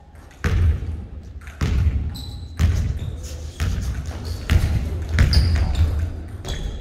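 Basketball dribbled on a hardwood gym floor, each bounce a low thud echoing in the hall, about once a second and quickening near the end. A couple of short high sneaker squeaks come in between.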